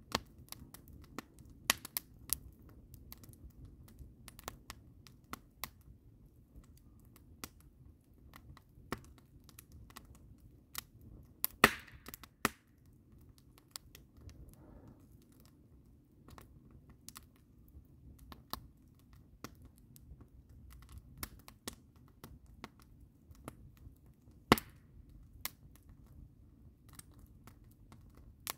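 Wood campfire of split logs crackling, with irregular sharp pops over a low steady rumble. A few louder pops come about twelve seconds in and again about twenty-four seconds in.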